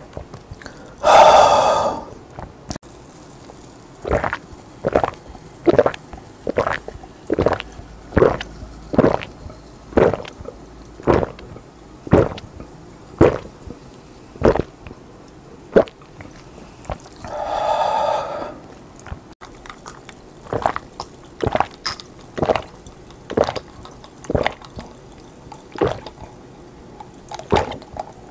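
A person chugging Coca-Cola from a glass in big throat gulps, close to the microphone, at about one swallow a second. Twice a loud voiced sound from the drinker breaks in, about a second in and again a little past halfway.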